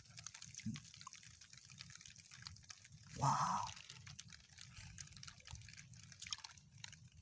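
Hand working in a muddy, water-filled hole: small wet squelches, drips and clicks of mud and water, with one short louder sound about three seconds in.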